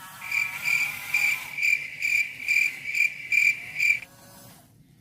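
A high, pulsing chirp repeated about twice a second, eight chirps in all, stopping about four seconds in.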